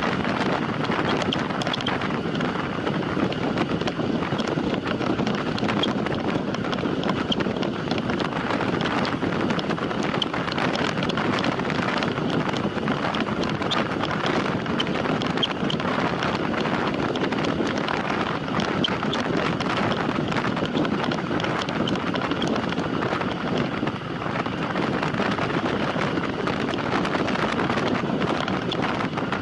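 Steady wind rushing over the microphone of a camera on a time trial bicycle ridden at race speed in a team time trial.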